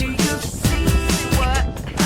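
Background music: a pop track with a steady drum beat and a bending, sung-style melody line.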